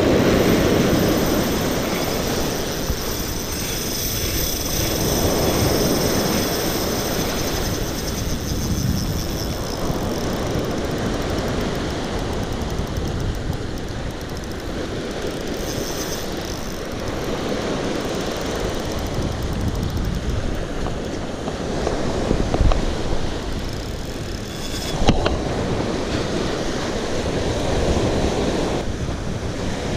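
Surf washing over a rocky shore, swelling and easing every few seconds, with wind buffeting the microphone; a single sharp knock toward the end.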